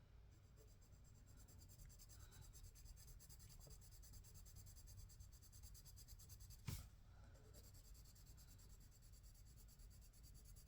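Faint scratching of a soft 2B graphite pencil shading on paper, laying down a swatch. One light tap about two-thirds of the way through.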